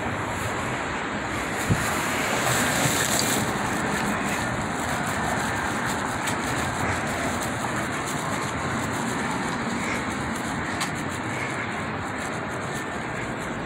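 Steady downtown street traffic noise from cars passing, with one brief knock about two seconds in.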